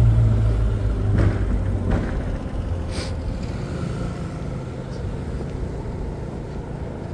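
City street traffic: a large motor vehicle's engine hum, loud at first and fading away over the first couple of seconds, then steady traffic noise with a short sharp click about three seconds in.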